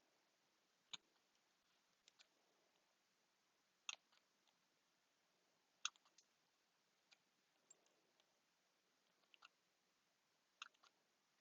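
Scissors snipping now and then through tape, about eight short, faint clicks at irregular intervals.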